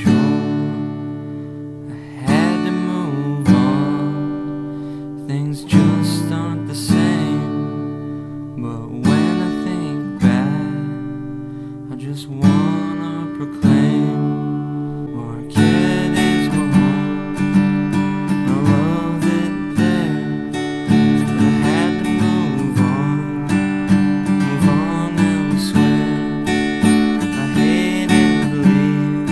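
Background music led by an acoustic guitar strumming chords: single strums left to ring at first, then a busier, steady strumming rhythm from about halfway through.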